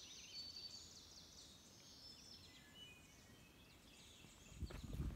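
Faint songbirds singing in woodland: several birds giving short, high, quickly sliding chirps and trills that overlap one another. A low rumble with a few knocks comes in near the end.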